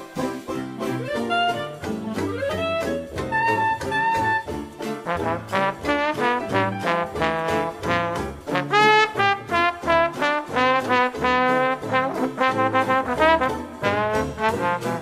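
Background music: an upbeat jazz tune led by brass, with quick runs of notes over a steady beat.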